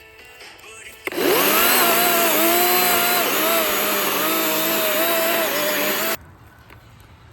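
Cordless battery-powered chainsaw spinning up about a second in, then running with a steady whine whose pitch dips and wavers as the chain cuts into a stump. It stops abruptly after about five seconds.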